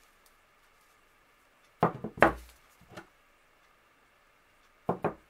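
Cast-iron Schuerhoff sad iron being set down on wooden boards: two heavy knocks about two seconds in, the second with a dull thud, a lighter knock a moment later, and two quick knocks near the end.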